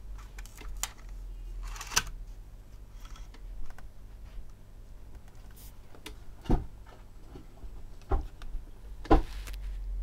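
A handful of separate sharp plastic clicks and taps as a Sharp MD-MS702 portable minidisc recorder is handled and its buttons pressed, the loudest in the second half, over a faint steady low hum.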